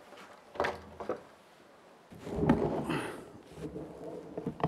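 Wooden planks being handled against a board wall: two knocks, then a longer scraping creak of wood on wood, and a few sharp clacks near the end.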